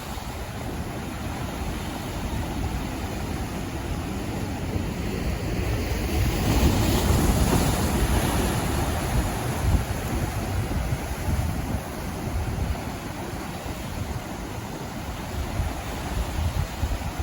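Ocean waves washing in, a steady rush of surf with one louder wave breaking about six seconds in and fading over a few seconds, with wind buffeting the microphone.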